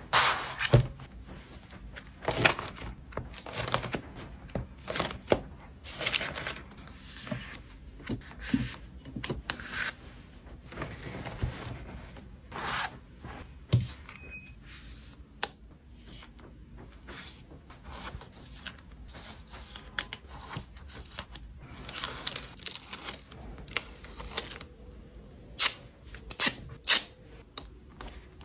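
Hands packing photo cards at a desk: plastic sleeves and wrapping rustling and crinkling, with many sharp clicks and taps at irregular intervals.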